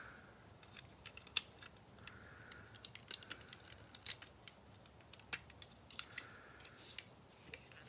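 Light plastic clicks and taps as the guns of a Transformers Titans Return Misfire figure are fitted onto its mounting points, with a few soft scraping rubs of plastic in between. Two sharper clicks stand out, one about a second and a half in and one a little past the middle.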